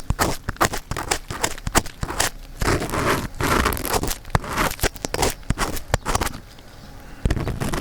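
Ear pick scraping and rubbing inside the ear of a 3Dio binaural microphone, heard very close: dense irregular scratchy clicks and scrapes, with a longer stretch of rubbing a few seconds in.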